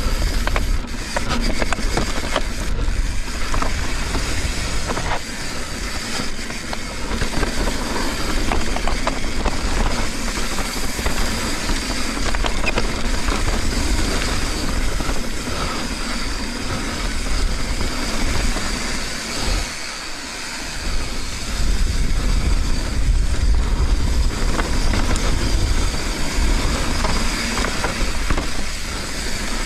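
Mountain bike descending a dirt trail: tyres crunching over dirt and rock with the bike rattling over bumps, under heavy wind buffeting on the helmet or chest camera's microphone.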